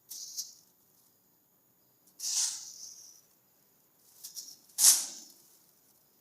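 Plastic crinkling and rustling in several short bouts as a kitten paws and plays with it. The loudest rustle comes about five seconds in.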